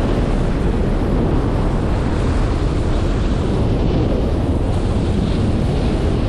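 Wind buffeting the microphone of a camera carried by a snowboarder on the move, a steady loud rush heaviest in the lows. Over it runs the hiss of the snowboard sliding over the snow.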